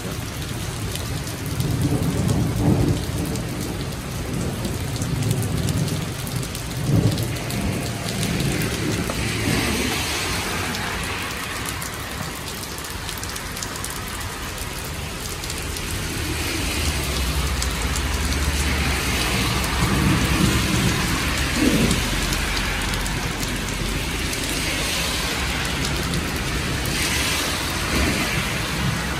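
Heavy rain pouring onto pavement and planters in a steady, dense hiss, with low rumbles of thunder swelling and fading several times.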